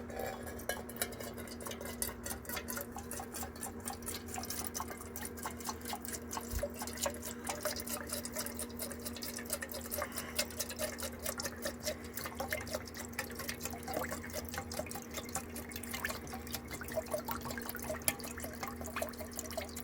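Turpentine poured slowly from a can into a tin: a thin trickle with rapid, continuous small drips and splashes.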